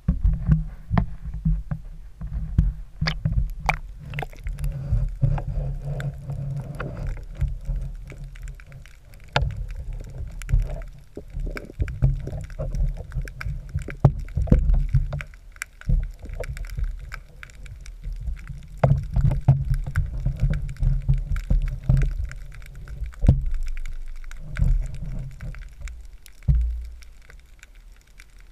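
Underwater sound picked up through a submerged camera housing: an uneven, muffled low rumble of water moving against the housing, with many sharp clicks and pops scattered throughout.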